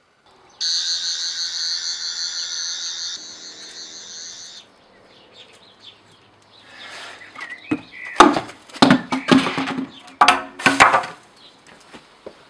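Electronic warbling whirr of a Doctor Who sonic screwdriver, held for about three seconds and then fading. After it, a few seconds of loud knocks and clatter.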